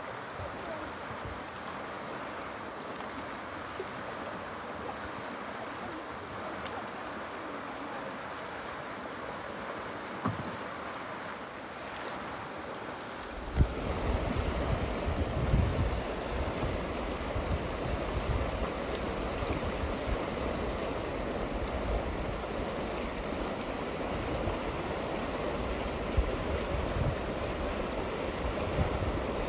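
Steady rush of river rapids. About halfway through, a deeper, gusty rumble of wind on the microphone joins the water.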